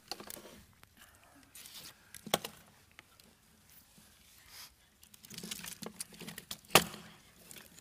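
Handling noise of a jointed hyena puppet being set down and arranged on a lectern: scattered knocks and clicks of its parts with light rustling. A sharp knock a little before the end is the loudest.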